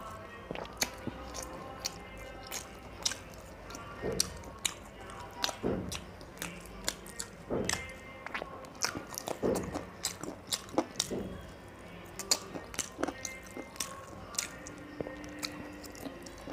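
Close-up mouth sounds of a man eating chicken curry and rice with his hand: wet chewing and biting, with irregular sharp smacks and clicks several times a second.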